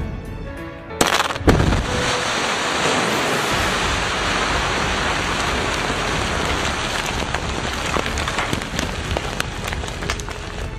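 Close-range explosive blast in a mine: a sudden sharp crack about a second in, a second one half a second later, then a long steady hiss and rumble as rock and dust pour out.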